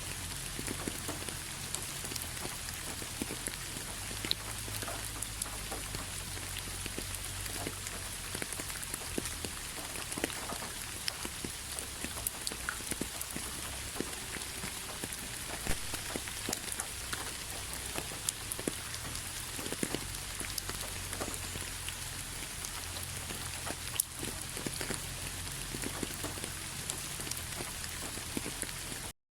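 Steady rainfall, an even hiss dotted with many sharp drop ticks striking a surface. It cuts out for a moment just before the end.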